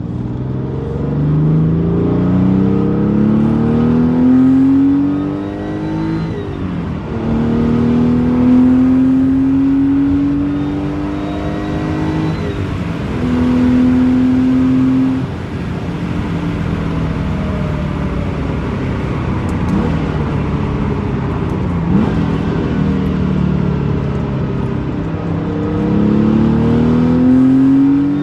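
Porsche 993's air-cooled flat-six, with a motor sound package, accelerating hard through the gears. Its pitch climbs and drops at upshifts about six and twelve seconds in, then eases to a lower steady run after about fifteen seconds before climbing again near the end.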